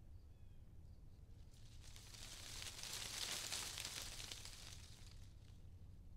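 A soft crackling rustle swells up about two seconds in, peaks near the middle and fades away before the end, over a steady low hum.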